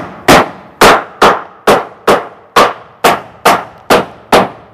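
A hammer driving nails into the wooden planks of a hand-built boat: about ten steady blows at roughly two a second, each with a short metallic ring.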